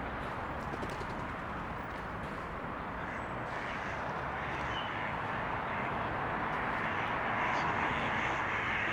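Steady rushing outdoor background noise, growing slightly louder toward the end.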